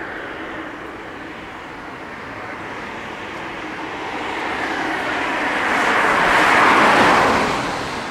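A car driving past on the road: tyre and engine noise grows over several seconds, peaks about seven seconds in, then fades away.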